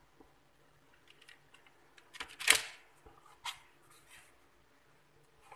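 Hands handling bread dough on a baking tray: a few short taps and rustles, the loudest about two and a half seconds in.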